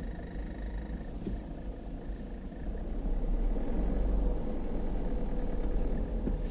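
2012 Peugeot 308 SW diesel driving, a steady low rumble of engine and road, with a thin high-pitched squeak over the first two seconds or so. The squeak apparently comes from a loose plastic air deflector in the front left wheel arch.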